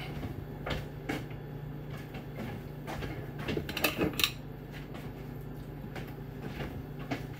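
A few light knocks and clicks of a plate and cutlery being handled on a kitchen counter, over a steady low hum.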